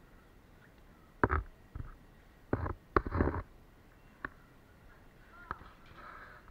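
Several sharp knocks and clatters, the loudest about a second in and again around three seconds in, as the wooden lever and boards of a manual coconut-milk press are handled and raised.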